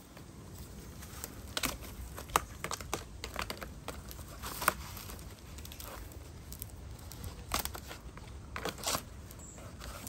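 Crinkling and rustling of dry bird-of-paradise trunk sheaths as flexible black irrigation tubing (funny pipe) and wire are worked around the trunk by hand, with irregular sharp clicks and crackles scattered through.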